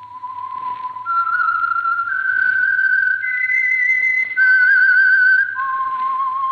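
A person whistling a slow signature theme tune. Long held notes climb step by step, then drop back, and the later notes waver with vibrato.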